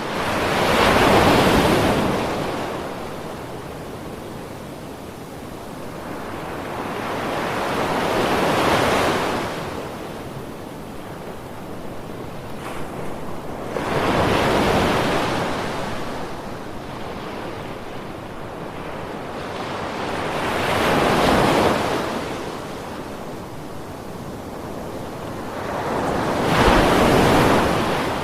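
Ocean waves breaking on a beach: five surges of surf about six or seven seconds apart, each swelling and then washing back, with a steady hiss of sea between them.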